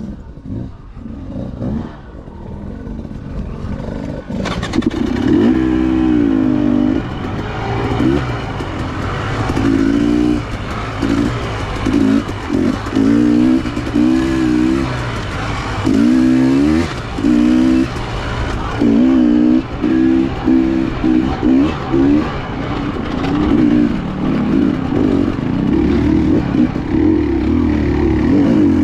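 Dirt bike engine being ridden on a trail, revving up and down over and over with quick throttle changes. It is quieter at first and gets loud about four seconds in.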